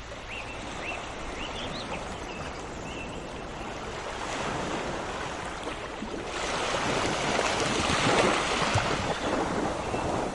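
Sea surf washing steadily, with a wave surging in about six seconds in, loudest around eight seconds, then easing. A few short bird chirps sound in the first three seconds.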